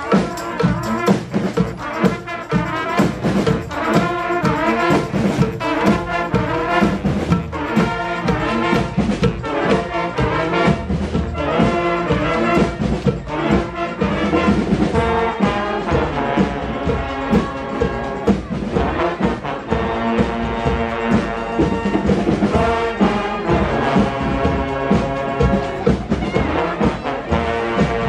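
Live brass street band playing, with trumpets, trombones and saxophone over a steady drum beat.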